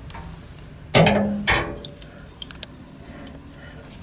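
Loose steel seat-rail parts clanking together as they are handled: two loud metal clanks about half a second apart, a second in, then a few light clicks.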